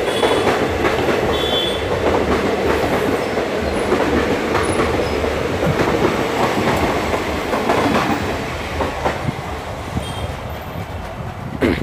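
Passenger coaches of an express train rushing past at speed, wheels clattering over the rail joints with a steady rumble. The sound fades as the last coach goes by near the end.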